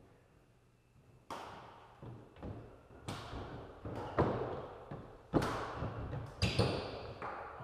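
Badminton rally: sharp cracks of rackets striking the shuttlecock, about five in all, one every second or so, with softer footfalls on the wooden court floor between them, each strike echoing in the gym hall.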